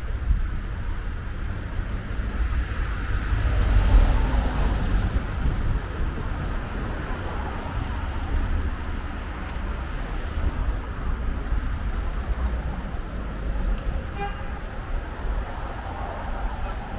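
Town street traffic ambience: a steady low rumble of cars, with one car passing close and loudest about four seconds in. A brief pitched tone sounds about fourteen seconds in.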